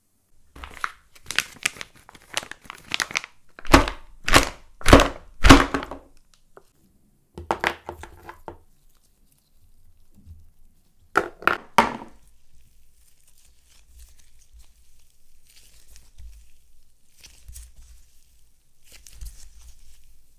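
Blue slime being squeezed, pulled and stretched in gloved hands: a run of sticky, wet pops and squelches, with four loud ones about half a second apart around four to five seconds in and another short cluster near twelve seconds, then a faint crackling as the slime is kneaded.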